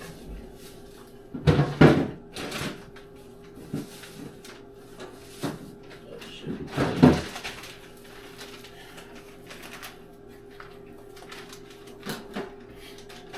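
Groceries being put away: scattered knocks, clunks and rustles of packages being handled and set down, loudest in a cluster about halfway through, over a faint steady hum.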